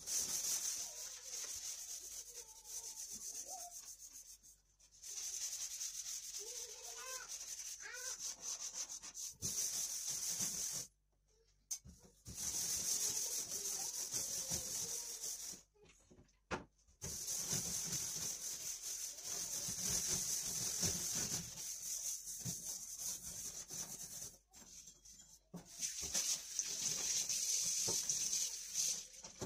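Hand scrubbing a soapy stainless steel sink drainboard: a steady hissing rub in bouts of several seconds, broken by a few short pauses.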